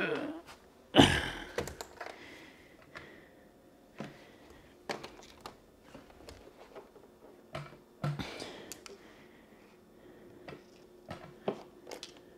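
Handling noise of heavy electric unicycles: a heavy thump about a second in, then scattered irregular knocks, bumps and clicks as a wheel is carried over and set onto a glass bathroom scale.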